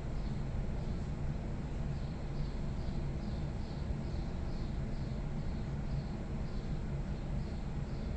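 Steady low rumble from a restroom vent, with a faint, short, high chirp that repeats about twice a second.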